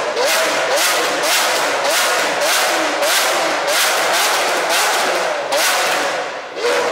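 Lamborghini Aventador SV's V12 on a catless Fi Exhaust Volcano system, revved in quick repeated blips, about two a second. Each blip climbs in pitch and is cut off sharply, with a loud rasp at every one.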